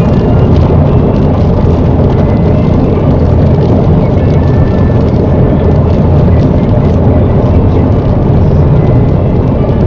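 Steady road noise inside a car's cabin at about 65 mph on a rain-soaked road: tyres on wet tarmac and the engine's drone.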